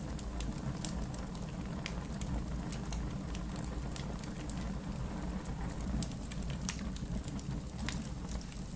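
Wood fire burning in a fireplace: a steady low rumble of flames with irregular sharp crackles and pops from the burning logs, several a second at times.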